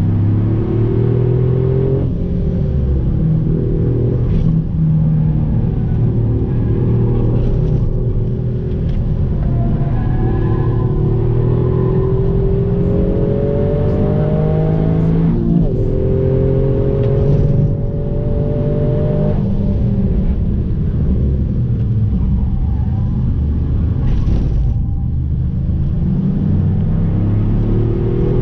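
Toyota Yaris engine heard from inside the cabin under hard track driving, its pitch climbing several times under acceleration and breaking off between climbs, over a steady rumble of road and tyre noise.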